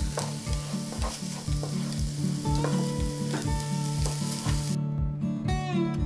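Chopped onion sizzling as it fries in a pan, stirred with a wooden spoon; the sizzle cuts off suddenly near the end. Background music with a steady beat plays underneath throughout.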